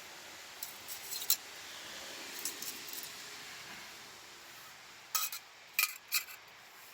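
Small metal clinks as lightweight camp-stove gear is handled. A few soft taps come first, then three sharper clinks between five and six seconds in, over a faint hiss that fades after about four seconds.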